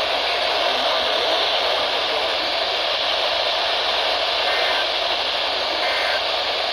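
Heavy radio static: a steady hiss from a weakly received station, with no clear broadcast getting through.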